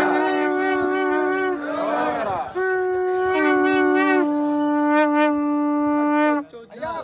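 Conch shells blown in long steady notes at two pitches a little apart, sometimes sounding together and sometimes one after the other. The notes break off for breath about two and a half seconds in and again near the end.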